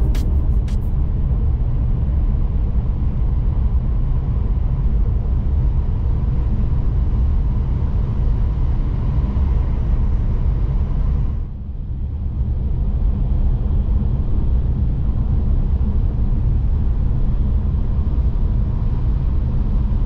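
Steady low rumble and rush of a Hayabusa bullet train running at high speed, heard from inside the passenger cabin. The sound briefly drops and dulls about eleven seconds in, then comes back as before.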